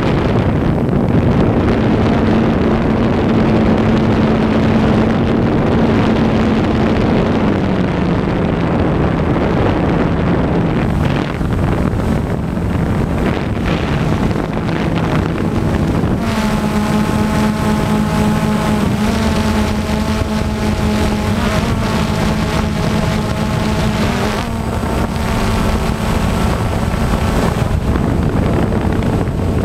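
Drone motors and propellers whirring steadily, heard through the drone's own camera, with wind noise on the microphone. The hum steps lower in pitch about seven seconds in and higher again about sixteen seconds in as the motor speeds change.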